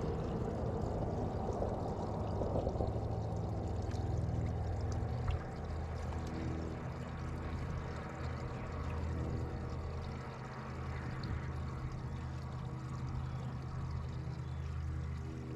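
Boat motor running steadily with water rushing and splashing along the hull. The sound drops a little and the motor's hum evens out about five seconds in.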